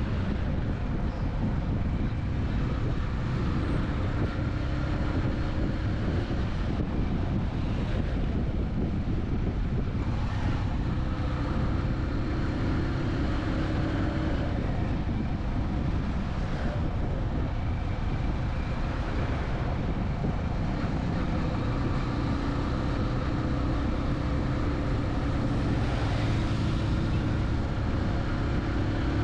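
Road traffic: vehicle engines running over a steady low rumble of road noise, with faint engine tones rising and falling as vehicles change speed.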